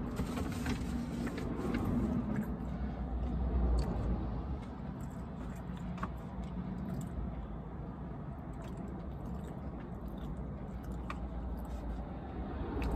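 Low steady rumble inside a car cabin, with scattered faint clicks and rustles as a sandwich is handled and eaten.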